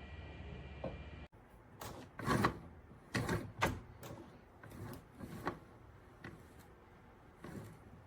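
Irregular knocks and clunks, about a dozen over several seconds, from a microwave oven being handled. A faint steady hum cuts off suddenly about a second in.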